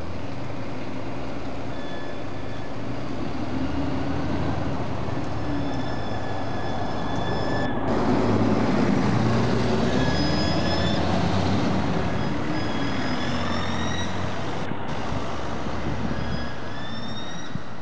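A vehicle running with a steady rumble, joined now and then by a thin high whine that rises slightly; it grows louder about eight seconds in.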